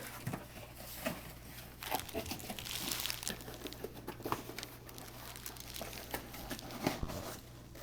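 Plastic wrapping crinkling with scattered light clicks as a replacement laptop keyboard is handled and fitted.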